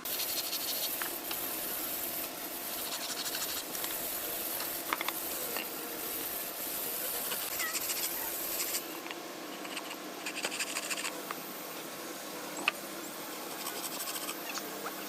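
Scraping and rubbing on wood, with a few light taps, strongest in the first nine seconds.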